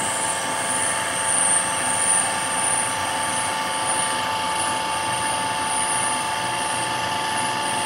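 Hydraulic power pack running: a 3 HP electric motor driving a radial piston pump, working against pressure as it is raised toward its 250 bar operating pressure. It gives a steady, unchanging hum with a high whine.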